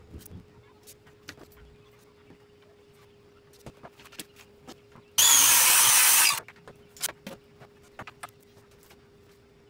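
Corded circular saw running loudly for about a second, starting and stopping abruptly, amid light knocks and clicks of handling.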